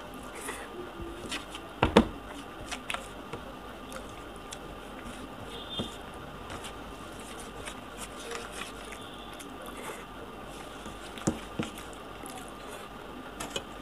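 A man eating rice and egg bhujiya by hand, with wet chewing and mouth squishing. A few sharp clicks come through, the loudest about two seconds in.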